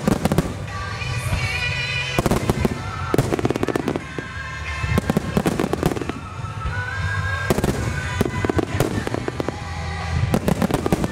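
Wide star mine fireworks finale: volleys of aerial shells bursting in dense salvos of bangs and crackles, coming in waves about every two to three seconds. Music plays under them.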